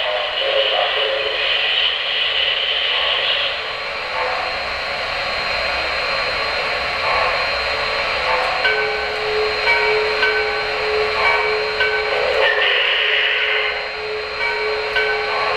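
Standing O-scale model steam locomotives with their sound and smoke units running: a steady hiss with light knocking. About halfway through a steady hum sets in, with short higher tones coming and going above it.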